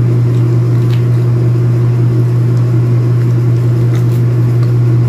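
Steady, loud low hum with no change in pitch, with a few faint ticks as pomelo segments are pulled apart by hand.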